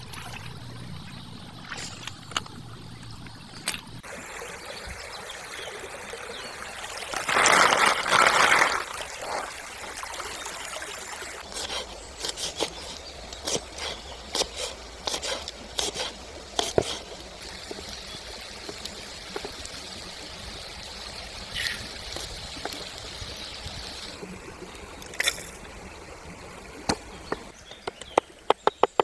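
Stream water running and trickling, with a loud rush of splashing water lasting about two seconds about seven seconds in. From about twelve seconds in, a large kitchen knife chopping on a wooden board in uneven strokes, turning into quick, even chops right at the end.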